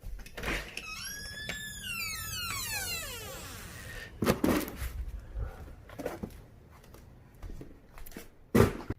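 Electronic intro sound effect: a warbling tone rises and falls, then sweeps steeply down in pitch, followed by two sharp hits about four seconds apart.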